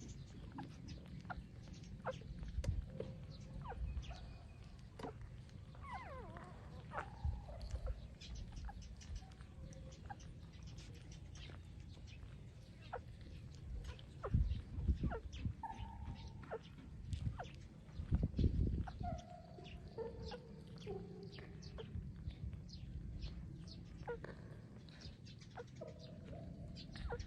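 Puppies suckling from their mother: scattered soft wet clicks and smacks, with a few short, high calls and a couple of low thumps about halfway through.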